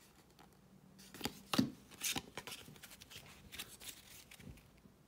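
Hockey trading cards handled in a stack, cardboard cards sliding and snapping against one another in a scatter of short flicks and rustles, the loudest about one and a half seconds in.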